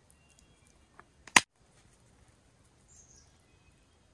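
A knife strikes once sharply against a metal camp plate, the loudest sound, just after a fainter tap. Faint bird chirps come through in the background.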